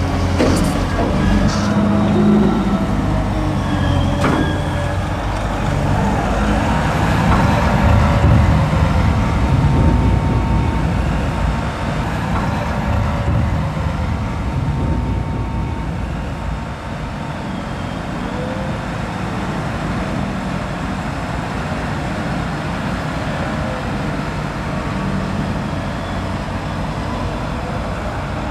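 Heavy diesel engines of a Claas Torion wheel loader and a Fendt tractor running while working, with a few sharp knocks in the first few seconds. A little past halfway the sound drops somewhat and becomes steadier.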